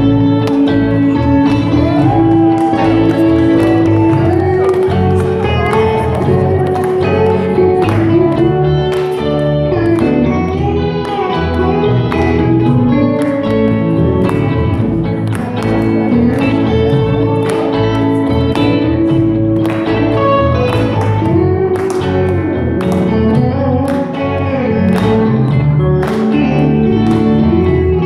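A live band plays a song with a steady beat: electric and acoustic guitars with a cajon, and a held melody line over them.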